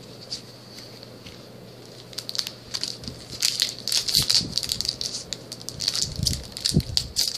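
Trading card booster pack's foil wrapper crinkling and being torn open, a rapid run of sharp crackles starting about two seconds in.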